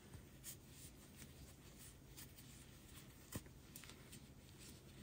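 Near silence with faint scratchy rustling from a crochet hook working bulky yarn, and a few light clicks, the clearest about three and a half seconds in.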